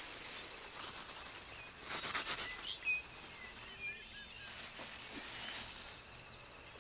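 A plastic sack rustling a few times about two seconds in as hands open it, over faint forest background with small birds chirping now and then.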